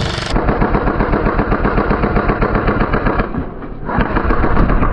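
Airsoft guns firing full-auto: a rapid, steady stream of shots over a mechanical whirr. The firing breaks off briefly a little past three seconds in, then picks up again.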